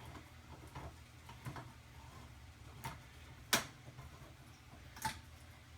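Manual can opener clicking and ticking as it is worked around the rim of a can, in irregular clicks, with a couple of sharper metal clicks about midway and near the end.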